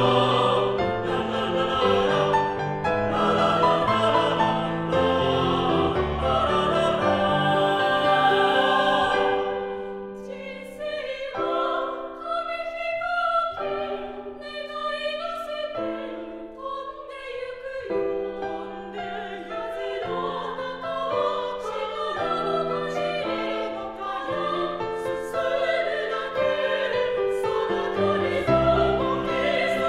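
Mixed-voice four-part choir singing a Japanese song in close harmony. Full and loud at first, it drops to softer held chords about ten seconds in, then builds again toward the end.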